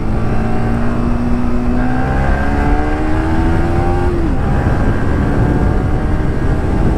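Yamaha R15 V3's single-cylinder engine pulling hard under acceleration, its pitch rising steadily, then dropping at a gear change about four seconds in and picking up again. Heavy wind rush runs over the microphone throughout.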